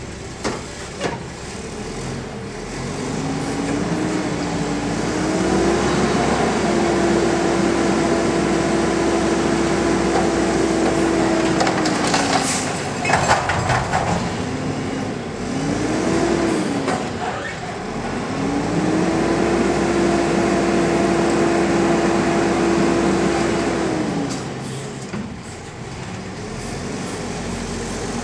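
McNeilus front-loader garbage truck with a Curotto Can automated arm cycling a cart. The engine revs up and holds high to drive the hydraulics while the arm lifts the cart over the cab, then drops back. About halfway through comes a cluster of loud bangs as the cart is slammed to empty it, and the engine revs up again as the arm lowers.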